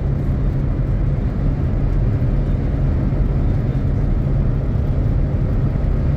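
Steady low road and engine noise inside a car's cabin while driving at highway speed.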